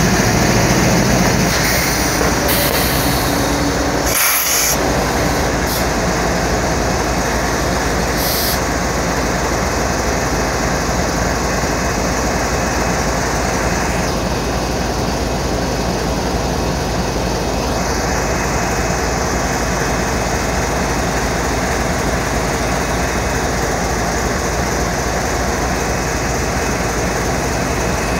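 CSX GE ES44AC-H diesel locomotive running close by as it pulls a freight train away: a loud, steady engine drone with train noise.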